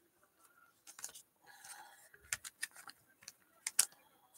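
Trading cards being handled and a card slid into a plastic sleeve: soft rustling and a series of sharp little plastic clicks, the loudest near the end.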